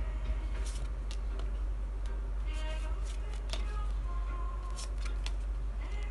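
Tarot cards being handled: scattered light clicks and snaps, over soft background music.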